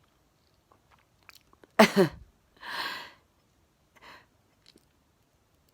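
A woman's short voiced catch, then a breathy exhale about a second later, with faint mouth clicks just before, in the middle of a sneezing fit.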